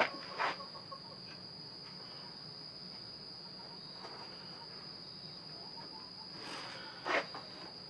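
Steady high-pitched insect drone, with a few sharp clicks and knocks as the steel conibear trap is handled in the vise, the loudest just after the start and about seven seconds in.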